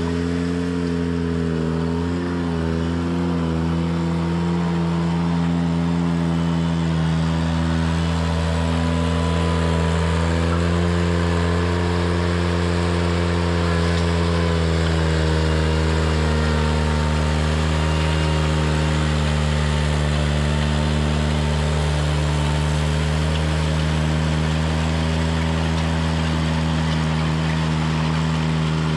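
Ventrac 4520 compact tractor's engine running steadily at an even speed, with a brief waver about two seconds in.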